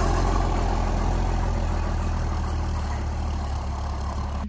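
John Deere tractor's diesel engine running steadily while pulling a seed drill across the field, with the drill's clatter mixed in. It passes close and then grows gradually quieter as it pulls away.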